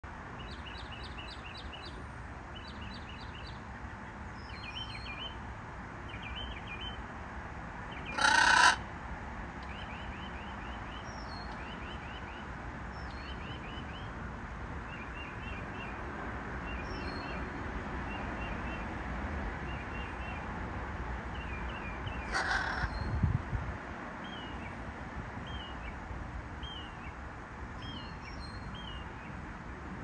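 Several wild songbirds singing in repeated short phrases of high chirps, trills and slurred whistles, a northern cardinal among them. A brief loud harsh call-like burst cuts across the birdsong about eight seconds in, with a weaker one about 22 seconds in.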